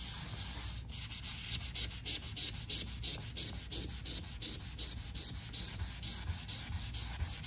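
Melamine foam sponge (magic eraser) scrubbed hard back and forth on a painted wall: a quick, even run of scrubbing strokes.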